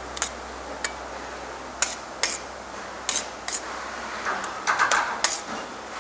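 Metal spoon clinking and scraping against a stainless steel plate while eating. A series of sharp clinks comes through, closer together near the end.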